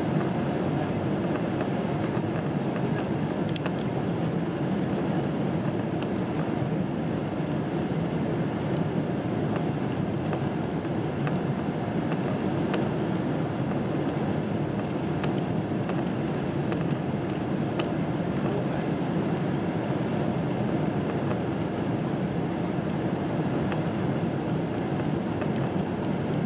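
Steady cabin noise of a Boeing 747-8i climbing after takeoff: the even roar of its GEnx turbofans and the air rushing past the fuselage, heard from a window seat over the wing. A few faint ticks sound here and there.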